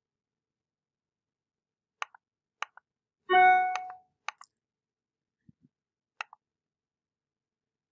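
Four sharp computer mouse clicks, each a quick press-and-release, and just over three seconds in a short ringing chime that fades, the loudest sound: a computer's incoming-message notification alert.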